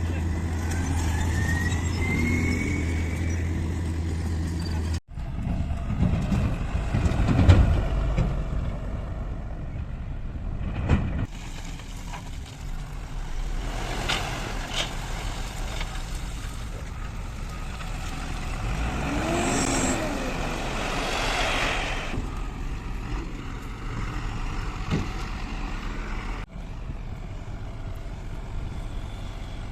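JCB backhoe loader's diesel engine running as it works, with a steady hum at first, then a rougher stretch of knocks with the loudest bang about seven and a half seconds in. The sound changes abruptly a few times.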